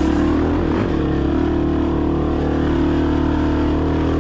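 Dirt bike engine idling steadily, its pitch holding level.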